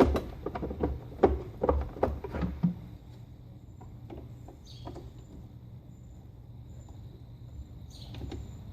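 A quick run of sharp clicks and knocks over the first three seconds, then quieter, with a faint steady high whine.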